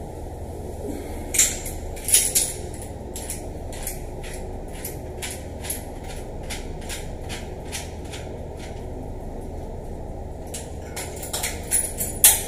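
Metal clicks and knocks of a wrench being set on and worked against a brass shower valve fitting. A few louder clicks come at first, then an even run of light clicks about two or three a second, and a cluster of sharper clicks near the end.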